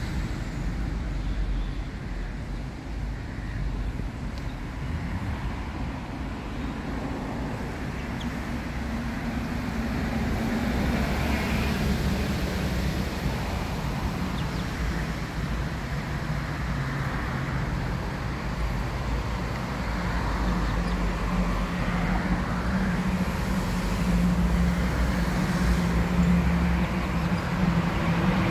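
Steady road traffic noise with a low rumble. A vehicle engine's hum comes in about a third of the way through and grows louder near the end.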